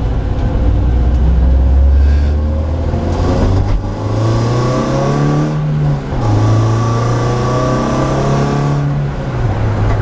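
BMW Compact Cup race car's engine pulling hard under full acceleration, the revs climbing and then dropping back at quick upshifts about four, six and nine seconds in, heard from inside the stripped-out cabin.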